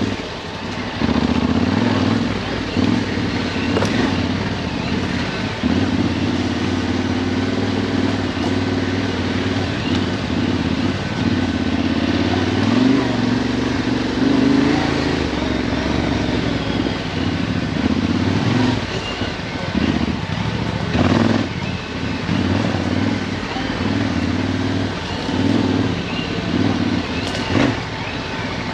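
Yamaha Ténéré 700's parallel-twin engine running at low to middling revs over a dirt trail, rising and falling with the throttle. A few sharp knocks come from the bike over rough ground.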